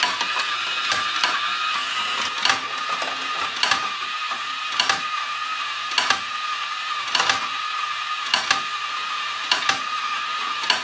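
Marble-run toy: a small motor running with a steady high whine, with sharp clicks about once a second, often in close pairs.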